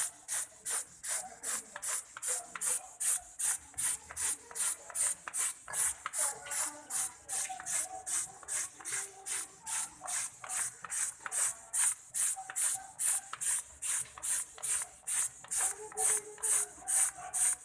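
Hand-pump insect sprayer being pumped to spray paint, about three strokes a second, each stroke a short hiss of spray.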